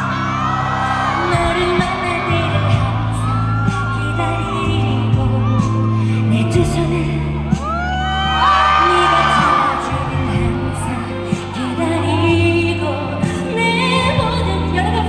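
A live pop song with a female lead vocal over the band, sounding through a large hall. The audience whoops and cheers over the music, loudest about two-thirds of the way through.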